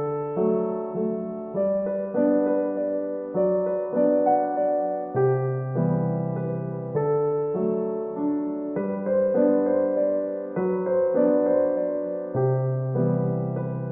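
Background music: a gentle solo piano piece playing slow, sustained chords and a simple melody.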